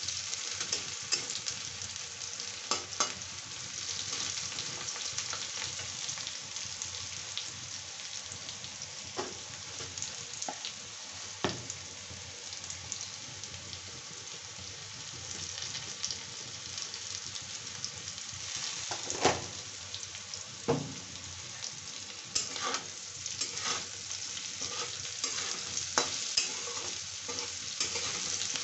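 Diced vegetable pieces frying in oil in a kadhai, a steady sizzling hiss, with scattered sharp clicks and scrapes as a metal spatula stirs them, a few louder ones in the second half.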